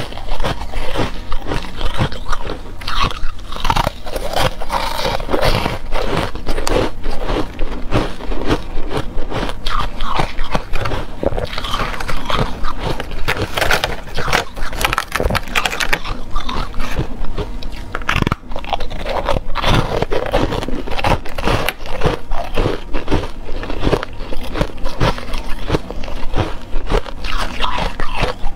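Shaped pieces of ice being bitten and chewed close to a clip-on microphone: a steady run of sharp, irregular crunches and crackles as the ice breaks between the teeth.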